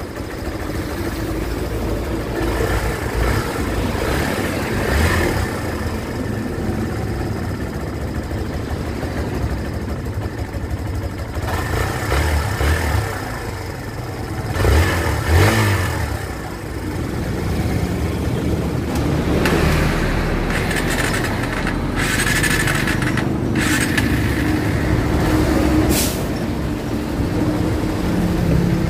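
Kawasaki Barako 2 single-cylinder motorcycle engine running at idle while its carburetor idle is adjusted, revved up briefly twice in the middle. Short bursts of hiss come in the latter half.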